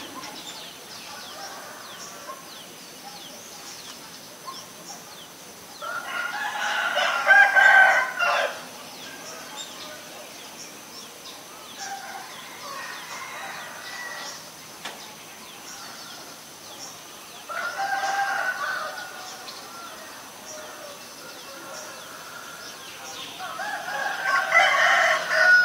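Domestic roosters crowing: three loud crows about two seconds long, around six seconds in, around eighteen seconds in and near the end, with a weaker call between the first two.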